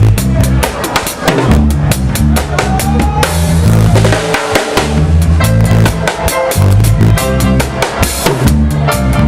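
Band music with a busy drum kit, kick and snare hitting in a steady dense rhythm, over a moving bass line and melodic parts.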